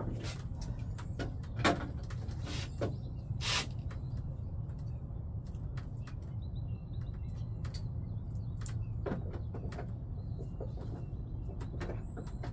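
Scattered knocks and clicks of gear being handled in a boat over a steady low rumble, with a louder rustle about three and a half seconds in. Faint short bird chirps come through in the middle stretch.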